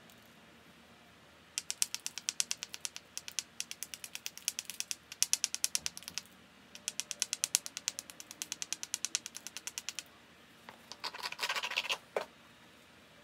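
Edge of a Flint Ridge flint biface being abraded with a small stone to prepare striking platforms: rapid scraping strokes, about seven a second, in three runs, then a denser grinding scrape and a single sharp click near the end.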